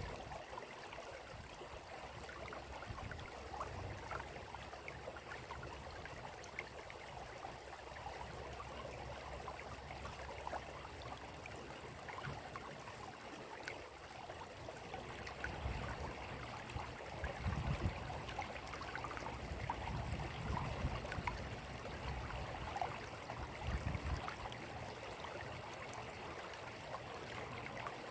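Running water trickling and babbling steadily, like a small stream, with a few low rumbles in the second half.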